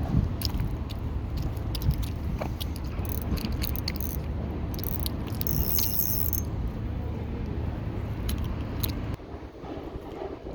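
Steady low wind rumble on the microphone, with many small clicks and rattles of handling mixed in; the rumble drops off about nine seconds in.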